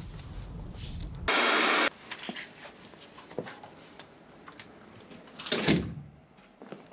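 A loud, even half-second hiss about a second in. Then a quiet room with faint scattered clicks and knocks, and a louder rustle or creak near the end as a woman comes in through a door.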